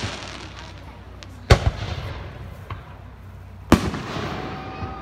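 Aerial fireworks shells bursting overhead: two sharp bangs about two seconds apart, each trailing off over a second or so.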